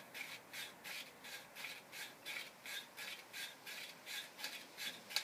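Ultimate Pipe Ready pipe-prep tool twisted back and forth on the end of a painted copper pipe, its cutters scraping the paint off in a rhythmic rasping of about three strokes a second.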